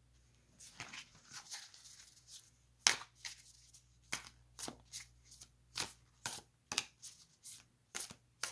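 A deck of tarot cards being shuffled by hand: a run of short crisp card snaps, about two a second, starting about half a second in.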